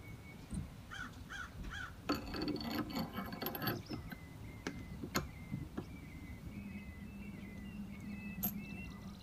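Small steel parts of an antique hand vise clinking as it is put back together: a run of rapid metallic clinks with a ringing tone about two seconds in, then a few single sharp taps as the screw and washer are fitted.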